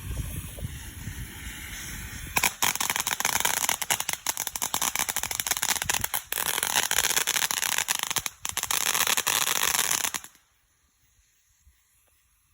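Dense, rapid crackling of many small pops, starting suddenly a couple of seconds in after a low rumble and cutting off abruptly about eight seconds later.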